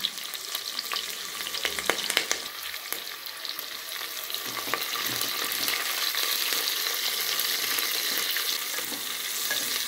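Chopped onions and curry leaves sizzling in hot oil in a pressure cooker as they are stirred and fried toward browning. A few clicks come in the first couple of seconds, and the sizzle grows a little louder about halfway through.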